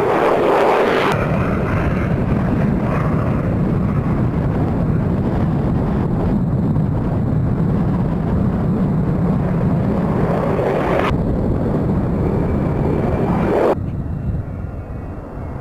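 F-16 fighter jet engine noise: a loud, steady jet roar. It changes abruptly about a second in and again near the end, where it drops quieter.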